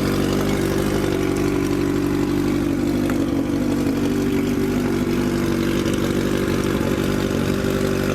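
Honda CB1000R's inline-four engine idling steadily at an even pitch.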